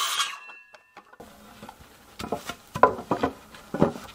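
A cordless circular saw finishing a cut through a 2x4 and winding down, followed by several sharp wooden knocks as lumber is handled and laid down, the loudest a little under three seconds in.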